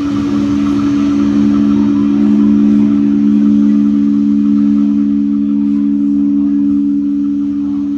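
Experimental music: a steady drone of two low held tones. It swells slightly in the middle and eases near the end.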